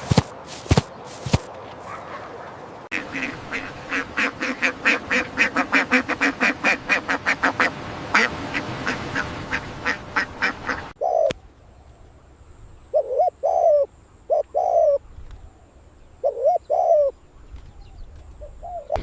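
Ducks quacking: after a few sharp clicks, a fast even run of quacks, about three a second, then a handful of separate quacks in pairs.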